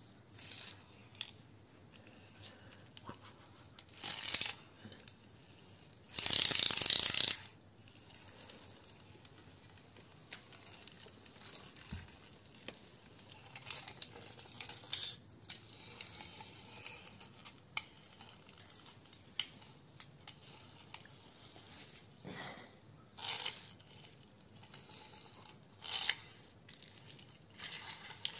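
Small plastic toy car pushed and rolled by hand on a hard floor: wheels rolling with scattered clicks and rattles. About six seconds in comes a loud burst of noise lasting about a second and a half.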